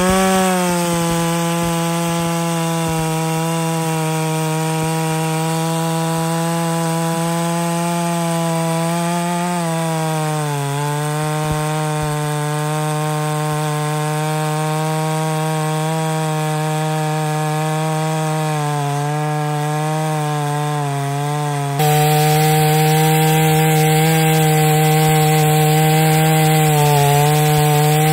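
Farmmac F380 chainsaw, a 72 cc two-stroke copy of the Stihl MS380, running at full throttle while bucking a large log. The engine note holds high and steady and dips a little under load about ten seconds in. It gets abruptly louder about three-quarters of the way through.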